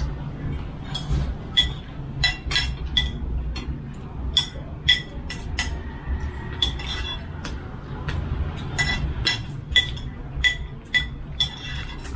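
Spoons clinking against soup bowls and dishes while eating: many short, ringing clinks at an irregular pace.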